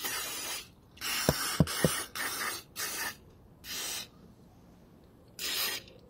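Aerosol cleaner sprayed in six short bursts onto a brake caliper, each well under a second long, with three light knocks in the middle.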